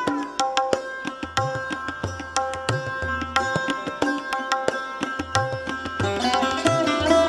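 Sarod played with tabla accompaniment. Plucked sarod notes ring over its sympathetic strings, with a downward slide at the start. The tabla's deep bass drum strokes come at a steady pulse beneath.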